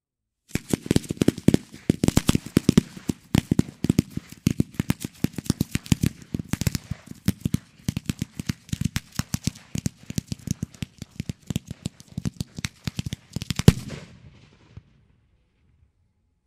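Consumer firework batteries firing a finale: a dense, rapid string of shots and bangs, several a second. The loudest bang comes right at the end, followed by a brief crackle before it stops suddenly.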